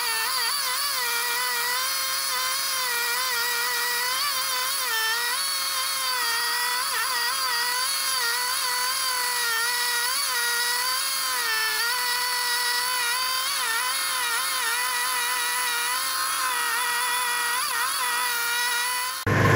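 Arctic Cat ZR 700 snowmobile's two-stroke engine running, a high-pitched whine whose pitch wavers up and down throughout: unstable RPM, which the owner takes for a spark problem.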